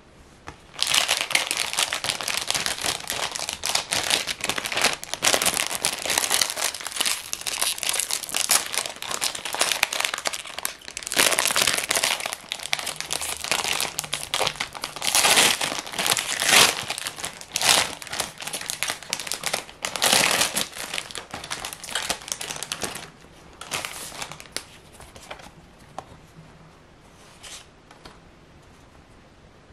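Foil-lined plastic wrapper of a trading-card pack crinkling and tearing as it is handled and ripped open. The dense crackle starts about a second in and dies down after about 23 seconds to a few sparse, quieter rustles.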